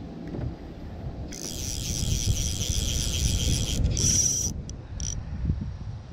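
Fly reel drag buzzing as line strips off the spinning spool to a running fish, for about two and a half seconds. A shorter burst and two brief clicks follow, under a low rumble of wind and handling.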